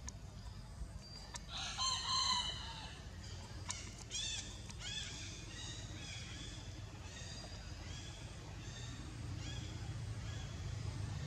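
A rooster crowing once, loudly, about two seconds in, followed by a string of shorter pitched calls, over a steady low background rumble.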